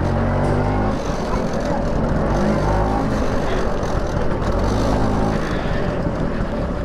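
LML NV scooter's two-stroke single-cylinder engine running while riding, its note rising and falling in places, under a steady rush of noise over the microphone.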